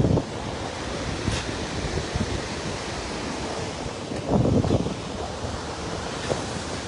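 Sea surf washing onto a beach, with wind buffeting the microphone; the noise swells louder about four and a half seconds in.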